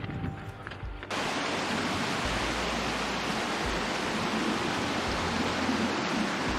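Steady rushing of running water, a full even hiss that starts abruptly about a second in, after a moment of faint music.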